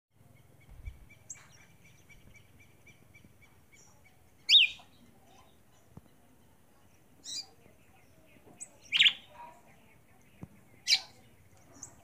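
Red-cowled cardinal giving short, sharp call notes that sweep downward in pitch, four of them a couple of seconds apart, the first about four and a half seconds in.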